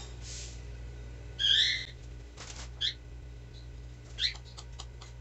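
Pet canary chirping. There are a few short calls, the loudest and longest about a second and a half in, followed by two brief chirps around three and four seconds in, over a low steady hum.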